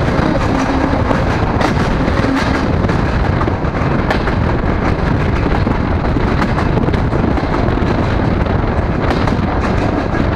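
DR1A diesel multiple unit running at speed, heard from an open window: a loud, steady rush of wind on the microphone and wheel-on-rail noise, with scattered clicks.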